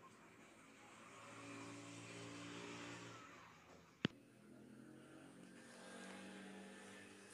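Faint engine or motor hum that swells and fades twice, with a single sharp click about four seconds in.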